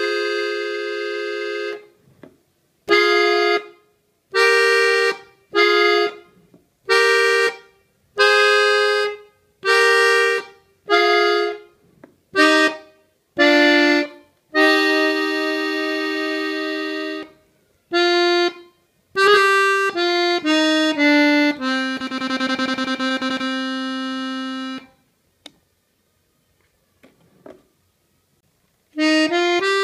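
Three-row Gabbanelli button accordion played solo: a series of short separate chords with brief pauses between them, then a falling run of single notes about 19 s in, ending on a held note with a fast tremble. After a few seconds of near silence with a couple of faint clicks, a quick rising run starts near the end.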